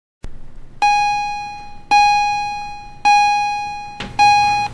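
A single high keyboard note struck four times, about a second apart, each one ringing and fading away; the last is cut off short.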